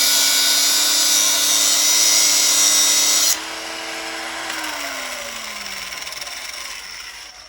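Angle grinder cutting into the steel of a welded-on motorcycle sprocket, with a harsh grinding hiss over the motor's steady whine. A little over three seconds in, the disc comes off the work. The motor then winds down with a falling whine as the grinder is switched off.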